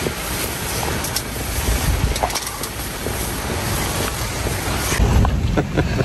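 Wind buffeting the microphone over the low rumble of a safari jeep, a steady noisy rush. The sound changes abruptly about five seconds in.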